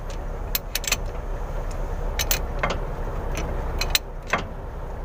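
Hand wrench turning the loosened pinion nut on a truck differential's flange, making irregular sharp metal clicks and clinks in small clusters over a steady low rumble.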